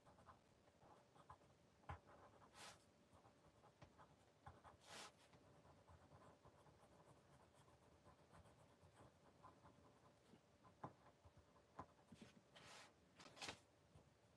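Faint scratching of a coloured pencil drawing on paper in short strokes, with a few louder, longer strokes about three and five seconds in and twice near the end.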